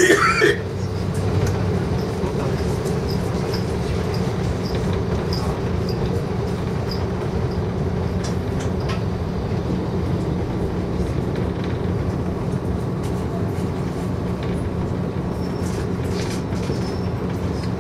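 Diesel railcar running, heard from inside the car: a steady rumble of engine and wheels on rail. A short clatter of clicks comes right at the start, and near the end the train is drawing slowly into a station.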